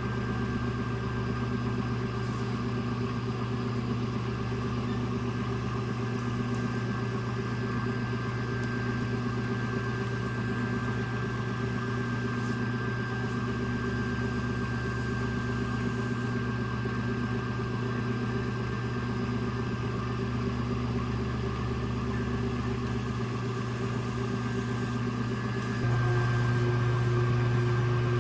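Electric potter's wheel motor humming steadily as the wheel spins. The hum steps up louder near the end.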